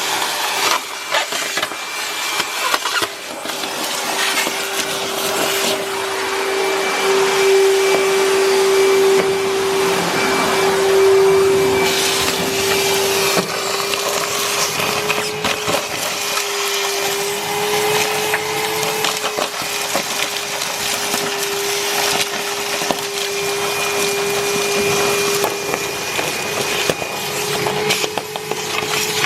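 ToolPRO 35-litre wet and dry shop vacuum running with a steady motor whine while it sucks up dry leaves and debris, which crackle and rattle through the hose and nozzle.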